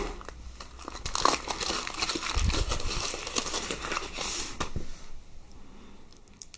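Foil wrapper being peeled and crinkled off a chocolate surprise egg, a dense run of crackling that dies down about five seconds in.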